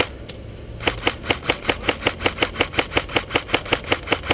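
Airsoft rifle firing a steady stream of cover-fire shots, about six a second, with a brief break just at the start before the firing resumes.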